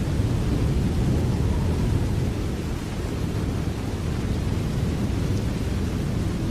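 Steady rain, a continuous, even noise weighted toward a deep low rumble.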